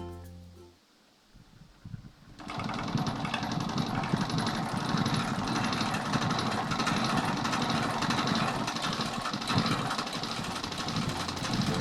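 Electric stand fan spinning with blue objects attached to its blades, making a rapid, dense rattling noise that starts about two seconds in.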